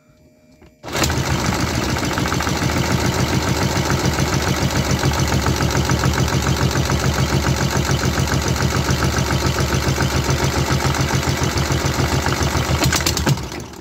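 3D-printed V-twin fuel-injected engine being cranked over with a fast, even chugging that starts about a second in and dies away near the end. It comes close to starting but does not catch; the builder finds that a camshaft had been fitted wrongly and its belt slipped on combustion.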